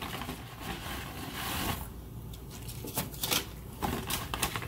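Stiff dry lasagna noodles clicking and rustling against each other and the pot as they are slid into boiling water, over a noisy hiss from the boiling pot. The clicks come in a quick run in the second half.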